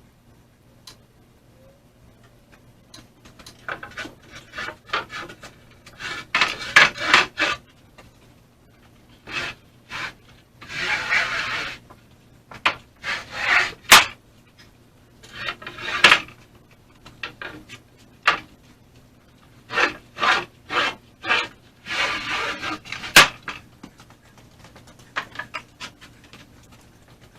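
Lumber being handled: wooden boards scraping as they are slid over one another, with sharp wooden knocks as they are set down, in irregular bursts with short pauses.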